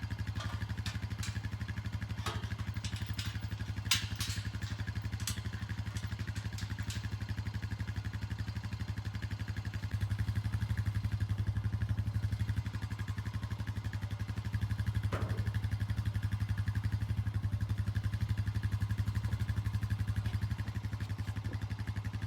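A motor engine running steadily at a low, even pulse, a little louder about ten seconds in, with a few sharp clicks and clatters in the first seven seconds and a single knock about fifteen seconds in.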